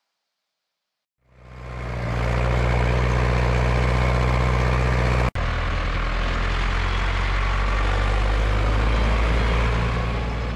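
Zetor 5341 tractor's diesel engine running steadily, fading in about a second in. It cuts out for an instant about halfway through.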